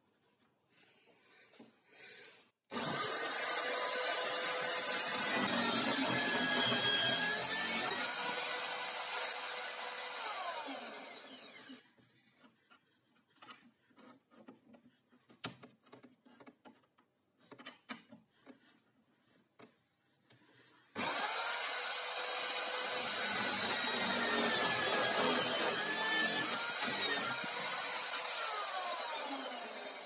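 Drill press with a Forstner bit boring into a plywood disc held in a jig. It starts abruptly about three seconds in, runs for about eight seconds and winds down. Then come light clicks and knocks as the workpiece is handled and turned, and the drill starts again about two-thirds of the way in, fading near the end.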